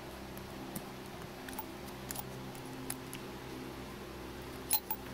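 Scattered faint clicks and taps of a fuel injector and plastic harness clip being handled on a fuel rail, with a couple of sharper clicks near the end, over a steady low hum.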